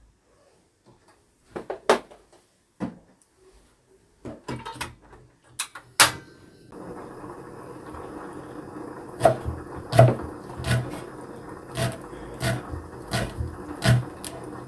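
Kitchen knife chopping a thick green onion on a wooden cutting board, a sharp knock with each cut, about one every two-thirds of a second in the second half. Before that, a few scattered clunks of things being handled and set down on the table, and from about seven seconds in a steady low hiss runs underneath.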